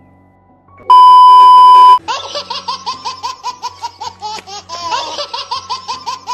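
A loud, steady, high test-tone beep starts about a second in and lasts about a second. It is followed by a laughter sound effect: a rapid run of short, high laughing syllables, about four a second.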